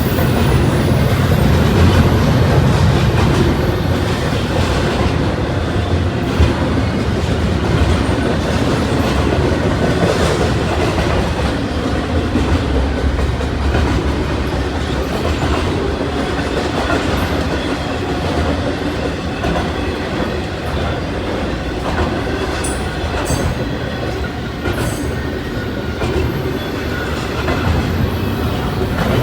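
Norfolk Southern freight train cars rolling past, with wheels clacking over the rail joints and a faint, steady wheel squeal.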